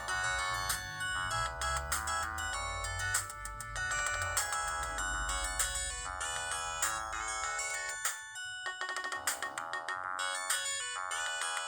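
Ringtone of an LG MG180 mobile phone playing: a busy electronic tune of quick notes over a bass line. About eight seconds in the bass stops and the tune breaks off briefly before the melody starts again.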